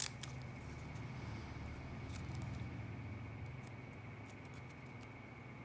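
Folded paper dollar bill being pressed and pushed between fingers: soft crinkles and small clicks of the paper, with a sharper click right at the start, over a steady low hum.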